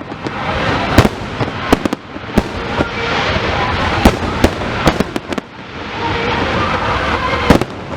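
Fireworks display: sharp bangs and crackles at irregular intervals over a continuous noisy background, with a quick cluster of reports about five seconds in.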